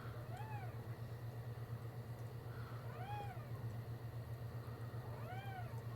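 Newborn puppy squeaking: three short, high cries, each rising and falling in pitch, about two and a half seconds apart, over a steady low hum.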